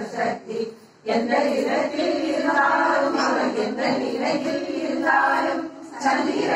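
A group of women singing a devotional song together in unison, with long held notes; the singing breaks off briefly about a second in and dips again near the end.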